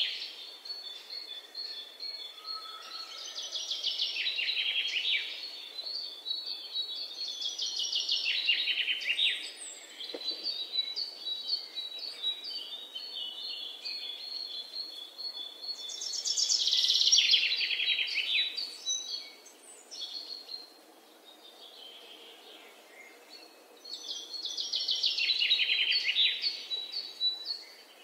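A bird singing short, high trilled phrases every few seconds, some falling in pitch, over a faint steady hiss.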